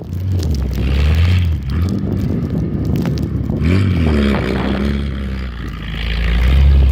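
A car engine revving hard as the car ploughs through deep snow, its pitch rising and falling, with a scraping hiss of snow under the car. The revving is loudest near the end.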